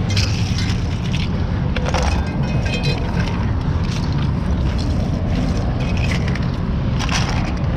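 A steady low engine rumble from an idling vehicle, with the scrape and clatter of broken plastic and glass crash debris being gathered by gloved hands off asphalt. The clatters come at the start, about two seconds in and near the end.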